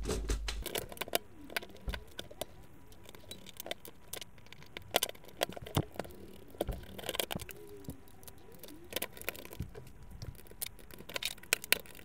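Plastic and metal parts of an inkjet printer's print-head carriage and rail assembly being handled and pulled apart: irregular clicks, knocks and light rattles, with a few faint squeaks.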